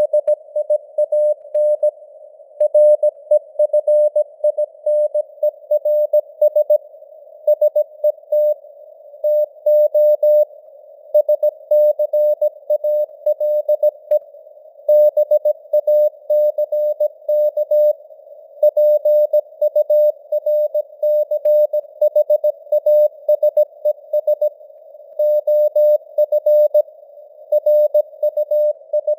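Morse code (CW) sent at 17 words per minute: a steady, mid-pitched sidetone keyed on and off in dots and dashes, spelling out news text. It sits in a thin band of simulated radio-receiver hiss.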